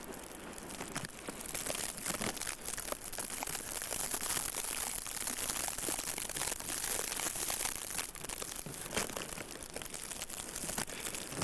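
Footsteps crunching through about a foot of snow, irregular crunches over a steady hiss of blowing wind.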